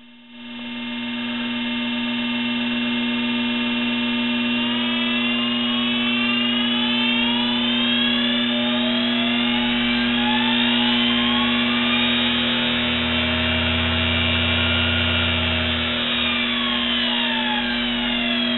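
A 1 HP DC treadmill motor run by its speed controller, whining over a steady electrical hum. The whine rises in pitch over several seconds as the motor speeds up, holds, then falls as it slows down near the end.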